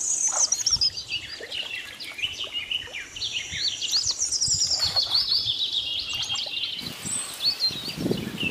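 Small birds chirping, with many quick, high, overlapping calls and short falling trills.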